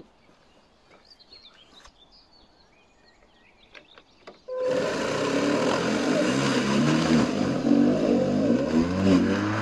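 Makita 380 mm cordless lawn mower starting up about four and a half seconds in and cutting grass, its motor note wavering under load, then switched off at the end. It is running with the cutting height set too low for the grass.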